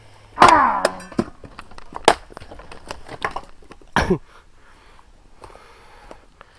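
Several sharp knocks, loudest about two and four seconds in, with a brief scraping sound near the start.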